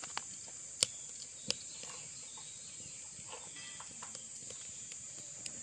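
Scalded chicken feathers being plucked by hand: scattered small clicks and ticks, the sharpest just under a second in and another about half a second later, over a steady high hiss.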